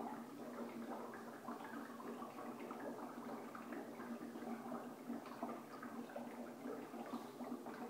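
Dry ice sublimating in a five-gallon bucket of hot water under a dome-shaped soap bubble, bubbling and gurgling steadily with many small pops as the carbon dioxide fog fills the bubble.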